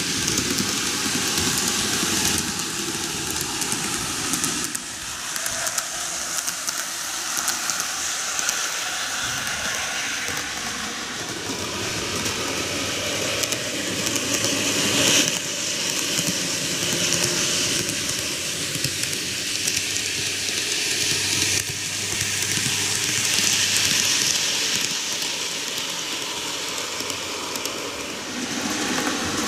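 TOMIX N-gauge model trains, models of the Meitetsu 8800 Panorama DX and KiHa 8200, running on TOMIX track: a continuous rolling noise of small wheels on the rails that swells and fades somewhat as they circulate.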